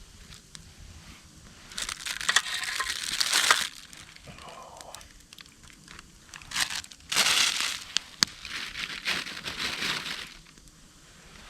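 Crinkling and rustling in several bursts of a second or two, with small clicks among them.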